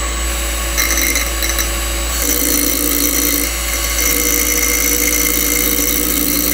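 A bench-mounted electric motor spinning a steel hole punch in its chuck, with a Dremel rotary tool running a grinding stone against the punch's edge to sharpen it. The grinding grows rougher and louder about two seconds in as the stone bites into the steel.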